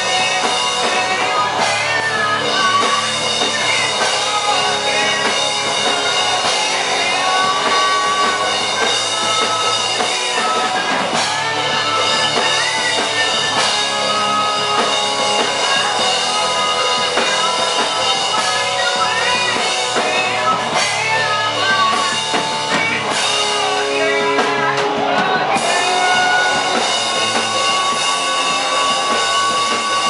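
A live rock band playing loud and without a break: electric guitars, bass guitar and a drum kit, with a singer's voice at times.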